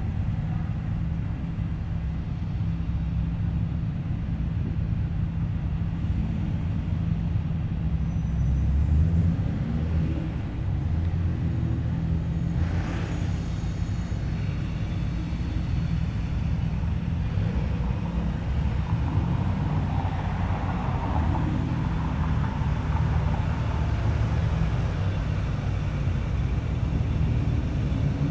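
Car engines running at low speed, a steady low rumble that shifts in pitch as cars move.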